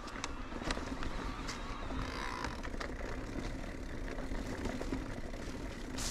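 Electric mountain bike ridden over a rough trail: tyres rolling over dirt and stones, with a low wind rumble on the microphone and scattered clicks and knocks from the bike. A brief, louder hiss comes near the end.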